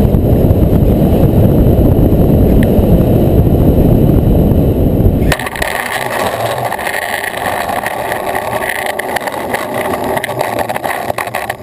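Nitro RC plane's glow engine heard from a camera mounted under the wing: for about the first five seconds a loud wind rush over the microphone swamps everything, then it cuts off abruptly and the engine's buzz comes through clearly.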